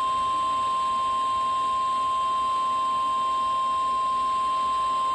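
NOAA Weather Radio warning alarm tone: a single loud, steady electronic tone held without a break, the signal that a warning message is about to be broadcast.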